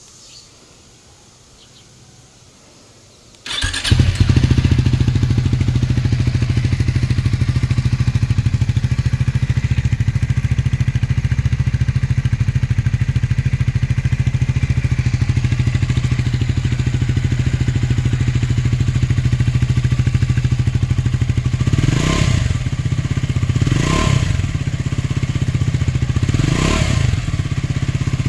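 Triumph Scrambler 400 X's single-cylinder engine starting about three and a half seconds in and idling steadily through a freshly fitted AEW slip-on exhaust, then blipped briefly three times near the end.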